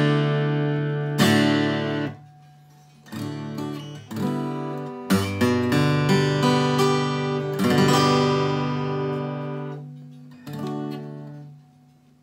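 Takamine cutaway acoustic guitar playing chords one at a time, each struck and left to ring out and fade, with short near-quiet pauses between some of them.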